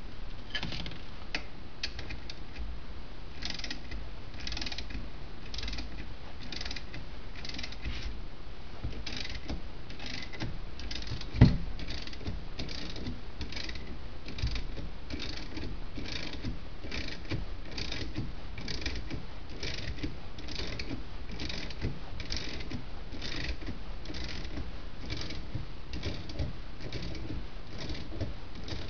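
Ratchet wrench clicking in steady back-and-forth strokes, about three strokes every two seconds, while a nut is tightened. One sharp knock about eleven seconds in.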